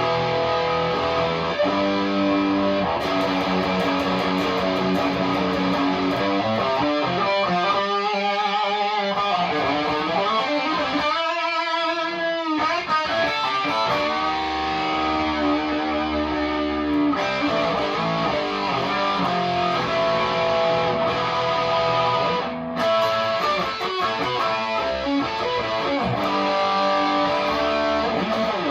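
Chibson Les Paul Custom electric guitar played through a Marshall DSL40 combo amp on its overdrive channel: chords and single notes, with a couple of wavering, bent notes with vibrato near the middle.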